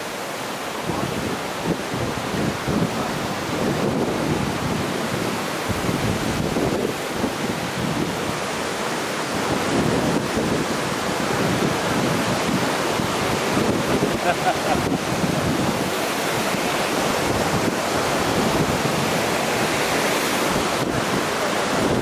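A waterfall plunging into a rock pool, a steady rushing roar of falling water, with wind and spray buffeting the microphone. It grows louder about ten seconds in.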